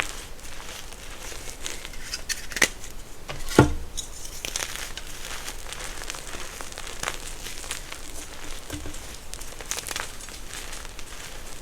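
Close-up crinkling and crackling from something handled near the microphone, with a sharp snap about two and a half seconds in and a heavier snap with a thump a second later.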